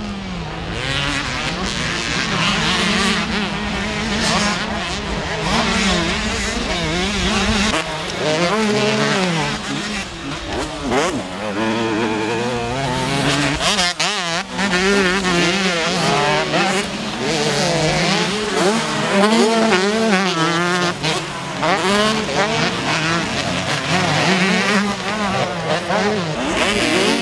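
Several two-stroke motocross bikes racing on a dirt track, their engines revving up and down over one another in quick rising and falling pitches as the riders accelerate and back off.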